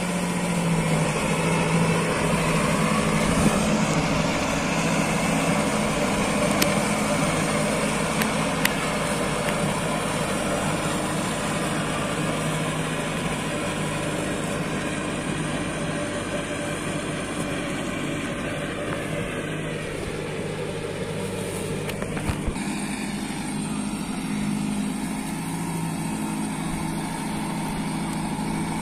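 Kubota tractor's diesel engine running steadily under load while driving a rotavator through flooded paddy mud, a little fainter in the second half.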